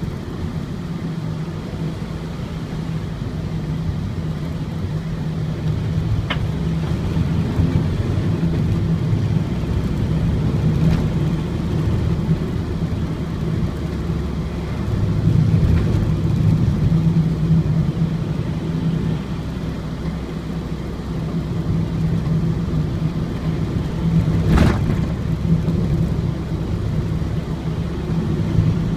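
Ford Transit's four-cylinder diesel engine and road noise heard on board while driving, a steady low drone that swells and eases a little with the road. A sharp click sounds once near the end.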